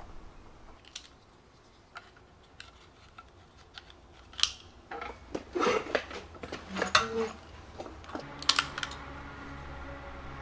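Scattered clicks and knocks of a CZ 455 bolt-action rimfire rifle being handled and settled at a bench rest before firing, with a quiet stretch early on.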